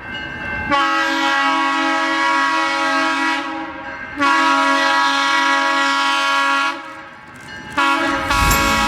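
Vintage Alco diesel locomotive's chord air horn blowing two long blasts, then a third one that begins near the end. A low rumble comes in under the third blast.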